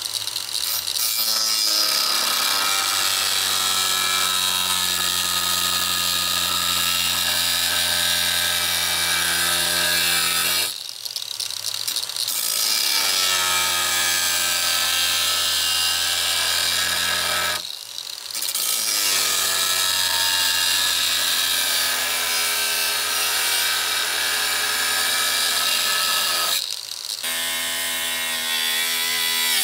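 Angle grinder cutting through 3/16-inch scrap steel plate: a loud, steady motor whine with the hiss of the wheel on metal. It drops away briefly three times and comes back up to speed each time.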